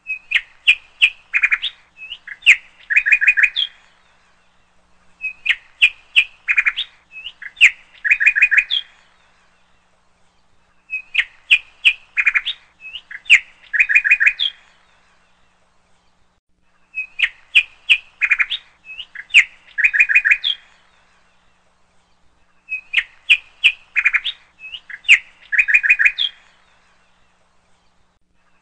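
Birds chirping and tweeting in a phrase of quick calls and short trills about three and a half seconds long. The same phrase repeats about every six seconds, a looped bird-call track.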